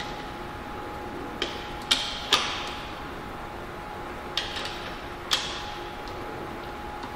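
Sharp metal clinks from a wrench working loose a motorcycle's spin-on oil filter, five of them spread over a few seconds, each ringing briefly, over a faint steady hum.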